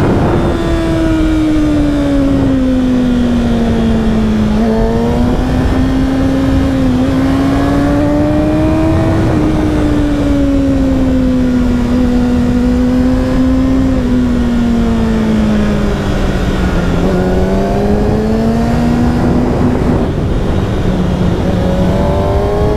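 The inline-four engine of a 2018 Kawasaki ZX-6R (636) running through an Akrapovic slip-on exhaust under way. Its note falls and rises in pitch several times as the throttle is eased and opened again.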